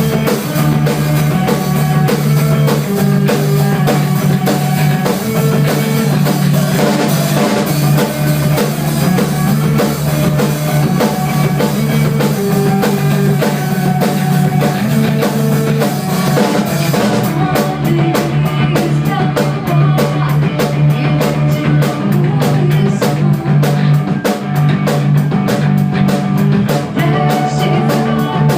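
Rock band playing a song on drum kit and guitar. About seventeen seconds in, the drums change to a fast, even beat.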